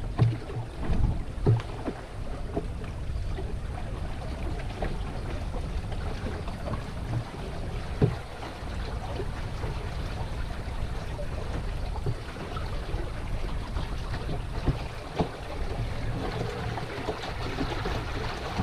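Water lapping and rippling along the hull of an Old Town canoe, with steady wind rumble on the microphone. A few low, short knocks break through, the loudest just after the start and about eight seconds in.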